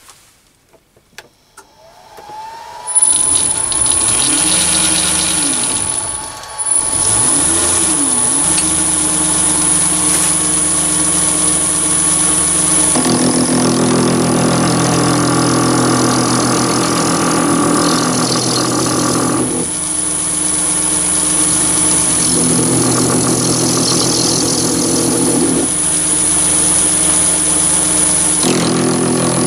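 Mini lathe motor spinning up about two seconds in and then running steadily with a high whine, dipping briefly and picking up again about six seconds in. From about halfway on it gets louder in stretches as a 2 mm grooving tool cuts a series of grooves into a brass rod.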